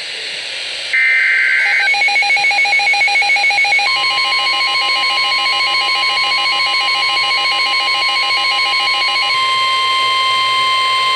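NOAA Weather Radio alert tones. A buzzy digital SAME header data burst ends about two seconds in. Rapid pulsing electronic alert beeps follow. About four seconds in, the steady 1050 Hz NWS warning alarm tone joins them and keeps sounding after the pulsing stops near nine seconds.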